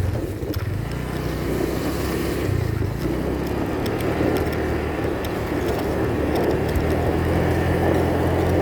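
Vehicle engine running at a steady, even speed while travelling along a road, with wind rushing over the microphone.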